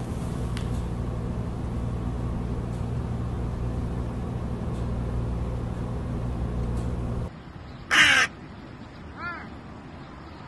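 A steady low hum, then a crow cawing: one loud caw and a fainter one a second or so later.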